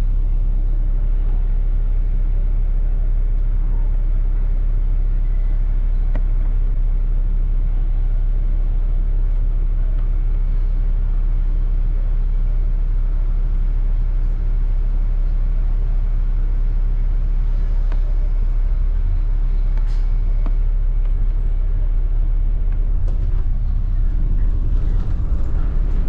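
Steady low rumble inside a double-decker bus, engine and road noise, with a few faint clicks.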